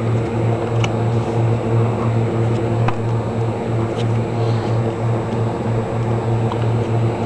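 A steady low hum with evenly spaced overtones, like a fan or electrical hum, runs throughout. A few faint, short ticks come over it, about one, three and four seconds in, as tarot cards are dealt onto a cloth.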